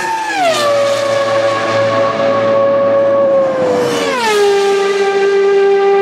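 Two Ferrari Formula 1 cars pass flat out one after the other. Each high-pitched engine note drops sharply in pitch as the car goes by, about half a second in and again about four seconds in, then holds a steady lower note as the car speeds away down the straight.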